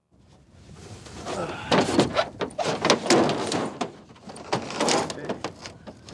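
Irregular thumps, knocks and scrapes as a deer carcass is dragged up over the tailgate into a pickup's lined bed and boots shift on the bed, starting about a second in and easing off near the end.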